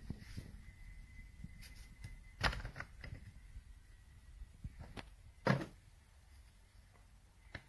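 A few light knocks and clicks, the two loudest about two and a half and five and a half seconds in, over a faint steady high-pitched hum.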